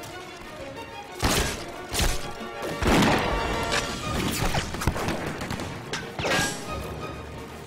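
Film score playing under a series of loud, sharp gunshot sound effects, about half a dozen at uneven intervals.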